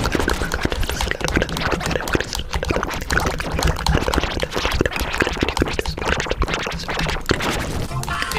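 Music with a busy, quickly struck beat over a steady low rumble.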